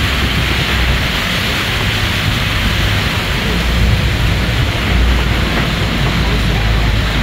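Open-air safari truck driving slowly with a low engine rumble, over a steady hiss of rushing water from small rock waterfalls beside the track.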